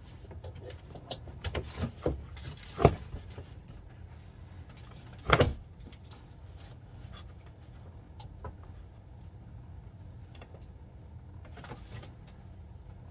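A few sharp knocks and clunks of things being handled, with the loudest thump about five seconds in, then a low steady hum with only faint ticks.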